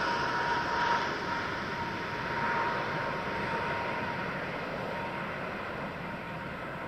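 Jet engines of a twin-engine airliner just after touchdown: a steady rush with a thin high whine, slowly fading.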